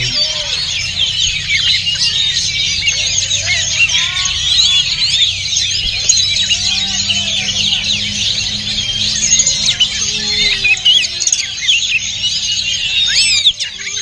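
Many caged songbirds, an oriental magpie-robin among them, singing at once: a dense, overlapping chorus of chirps and whistles, with a low steady hum underneath.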